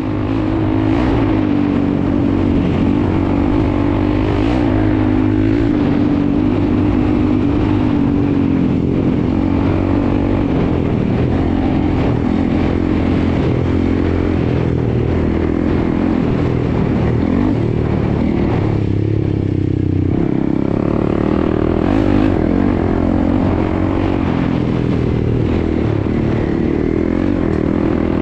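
Honda CRF300L's single-cylinder four-stroke engine running hard as the dirt bike is ridden at speed, its pitch rising and falling with the throttle, with a brief let-off about two-thirds of the way through.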